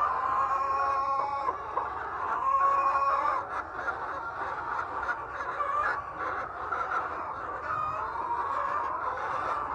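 A flock of chickens clucking and calling together, many overlapping calls throughout, with a couple of longer drawn-out calls in the first few seconds.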